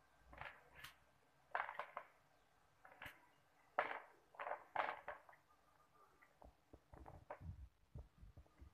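Fresh chillies being handled and sorted in a plastic bowl: a string of crisp crackles and rustles as they are moved and dropped, the sharpest during the first five seconds and fainter ones near the end.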